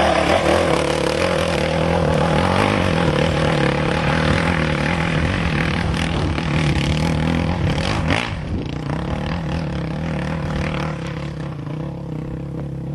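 Dirt bike engine pulling hard up a steep, rocky hill climb, a steady high-revving note that slowly fades as the bike climbs away.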